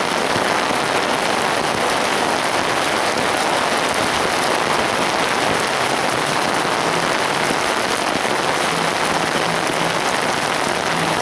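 Heavy rain pouring down onto a flooded street, a dense, steady hiss with no letup.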